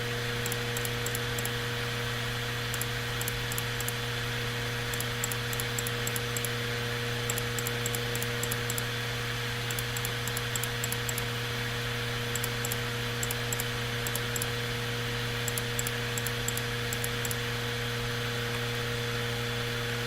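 Steady electrical hum with faint clusters of high crackling clicks throughout.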